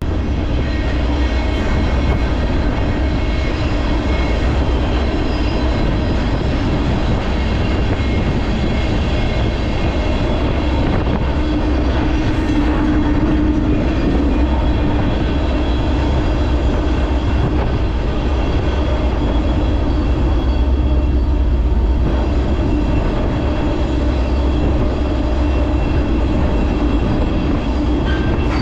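Freight train running: a steady rumble and rattle of wheels on the rails, with a faint drawn-out tone about twelve seconds in.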